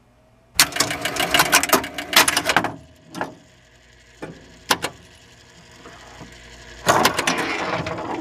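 Electromechanical pinball machine mechanism clattering: a dense run of rapid relay clicks for about two seconds, a few single clicks, then another dense clatter near the end.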